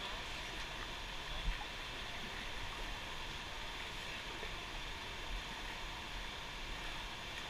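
Steady rushing of river water, with a single brief knock about one and a half seconds in.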